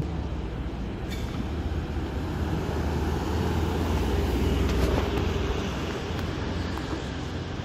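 Mercedes-Benz S-Class convertible driving past slowly, its engine a low rumble that swells as the car comes close about four seconds in, then eases off as it pulls away.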